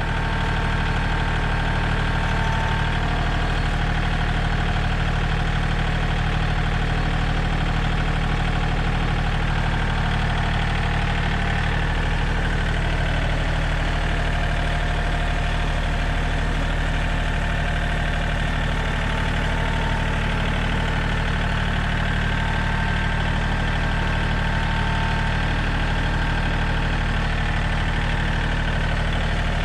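John Deere tractor engine running steadily at idle while its front-end loader holds a header up on its forks.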